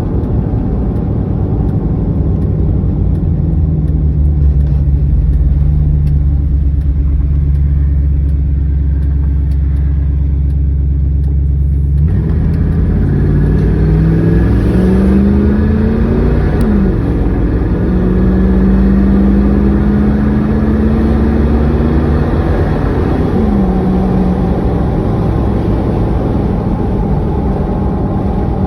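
Vehicle engine, its bad fuel injector just replaced, running steadily, then about twelve seconds in pulling away: the pitch rises, drops abruptly, rises again and drops once more near the end, as the vehicle accelerates through two gear changes.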